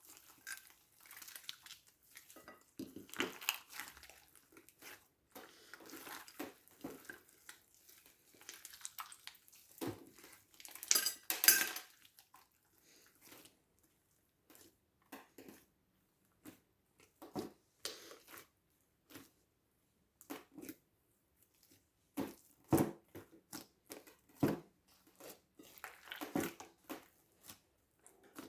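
Irregular clinks and scrapes of a utensil working slime against a bowl, in short bursts separated by quiet gaps. The loudest is a quick run of clicks about eleven seconds in.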